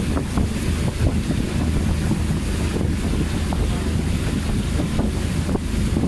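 Small aluminium boat under way: a steady low engine rumble mixed with wind buffeting the microphone and water rushing along the hull.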